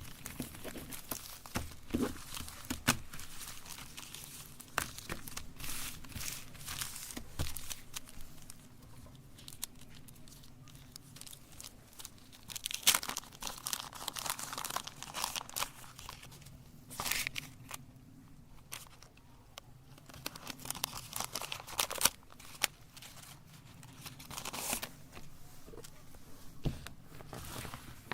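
Chocolate bars and their wrappers crinkling, tearing and crunching in irregular bursts, with sharp cracks now and then.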